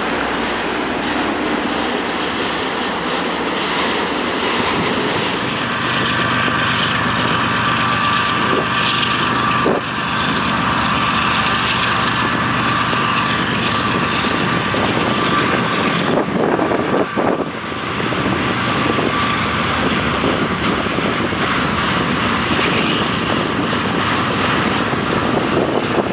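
CSX double-stack intermodal freight train passing close by: a steady rumble of its wheels on the rails, with a steady high ringing tone joining about six seconds in.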